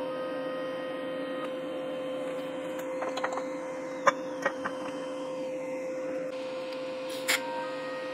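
TIG welding a drive shaft: a steady electrical hum throughout, with a faint thin whine of the arc that stops about a second and a half in. A few sharp metal clicks and clanks follow as the shaft is turned in the vise, and near the end the arc is struck again with a short crackle and the whine returns.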